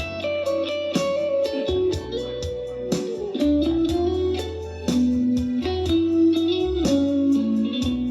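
Instrumental break of a pop ballad: an electric guitar plays a lead melody with bends and slides over bass and a steady drum beat, played back through an Alpha Works GENBEAT 120 party speaker.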